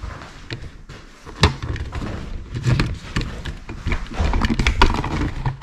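Handling noise: an irregular run of knocks, thumps and rustles as someone moves about and handles gear, with a sharp knock about a second and a half in.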